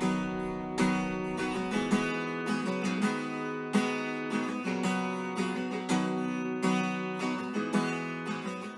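Acoustic guitar music, strummed and plucked chords played at a steady pace.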